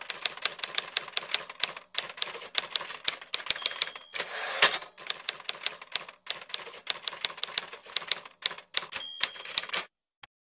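Manual typewriter sound effect: keys clacking in quick, irregular strokes. A short bell ding comes a little before four seconds and again near nine seconds, with a longer sliding rush at about four and a half seconds. The typing stops about a second before the end.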